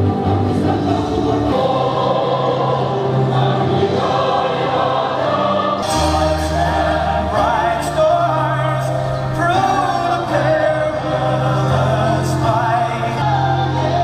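A national anthem sung by a choir over instrumental accompaniment, with long held bass notes under the sung melody.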